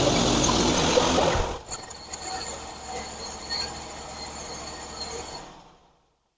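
Portable band sawmill running, loud and steady for about a second and a half, then dropping to a much quieter running sound that fades out.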